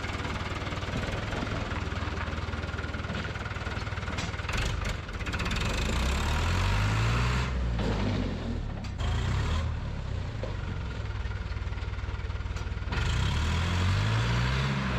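Fiat 640 tractor's four-cylinder diesel engine running steadily, revved up about six seconds in and again near the end.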